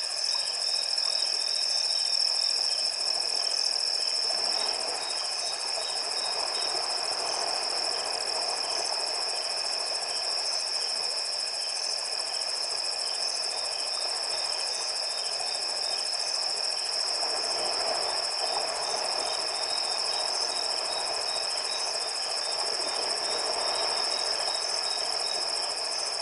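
A chorus of night insects keeps up a steady high trill with evenly pulsing calls over it. Beneath it, water swishes and washes as an elephant wades through a flowing river, swelling a few seconds in and again in the second half.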